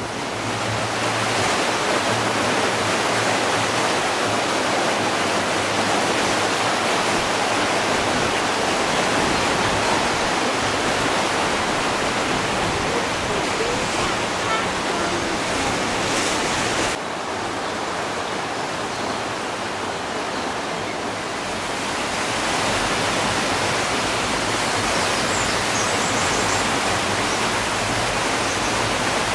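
Swollen river in flood: fast brown floodwater rushing and churning in a steady, loud rush. It drops a little in level partway through, then swells again.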